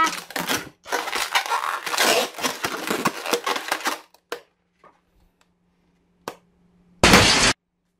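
Long latex modelling balloon rubbing and crackling against hands as it is folded and squeezed, then a single loud pop about seven seconds in as it is pricked with a pin.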